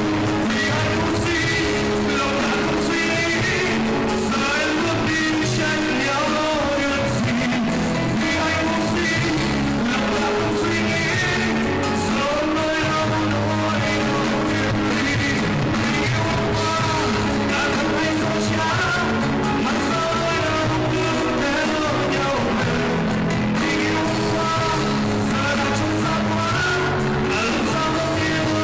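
A man singing a song into a microphone with a live band accompanying him on drum kit and other instruments.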